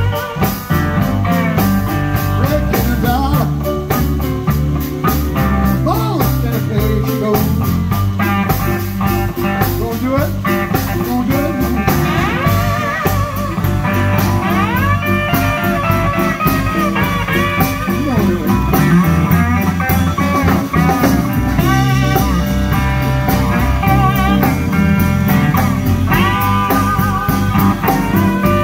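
Live blues band playing an instrumental passage: an electric guitar lead with bent notes over drums, upright bass and keyboard.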